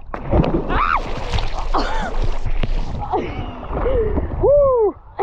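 Splashing in open water and a man's loud wordless shouts, each rising and falling in pitch, the loudest near the end: his reaction to the cold water.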